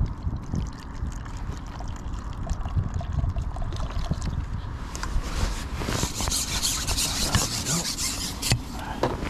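Water splashing and trickling, with a bright crackling hiss in the second half, over a low rumble of wind on the microphone.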